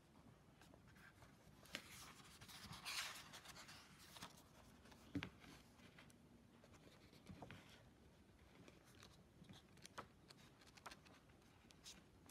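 Faint handling noise from unboxing: a soft scratchy rustle about two to three seconds in, and scattered small clicks and taps.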